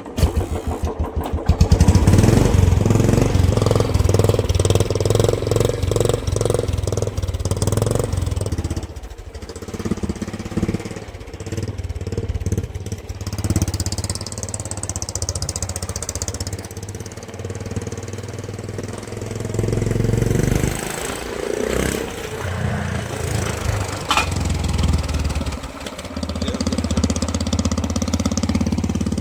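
Engine running through a swapped exhaust silencer, its firing pulses loud and rough. It comes in abruptly, peaks about two seconds in, then rises and falls in level as the throttle is worked.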